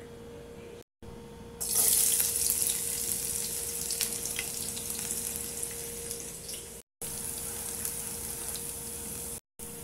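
Chopped garlic sizzling in hot olive oil in a nonstick frying pan. It starts suddenly and loud about a second and a half in as the garlic hits the oil, with crackles through a steady hiss that eases a little as it fries.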